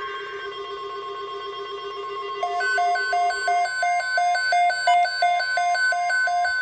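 Weather alert radios going off together over a steady high warning tone. A continuous buzzing alarm stops a little after three and a half seconds in, and a rapid beeping alarm of about three beeps a second, alternating between two pitches, starts about two and a half seconds in.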